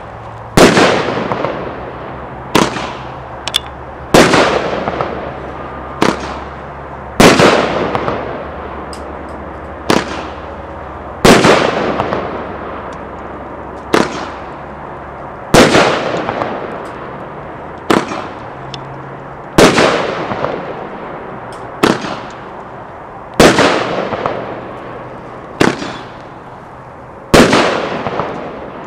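500-gram, 15-shot consumer firework cake firing its shots one after another: a sharp bang every one to two seconds, each trailing off as the burst spreads.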